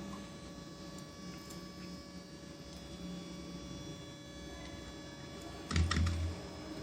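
Steady low hum with faint tones, and a brief knock with a light clatter about six seconds in.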